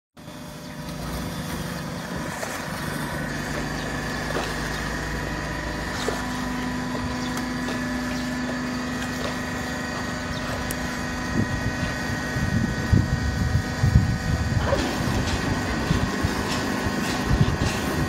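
Continuous full-automatic horizontal baler line running with its cardboard feed conveyor: a steady machine hum with a few held tones. From about eleven seconds in, irregular low thumps and rattles join it.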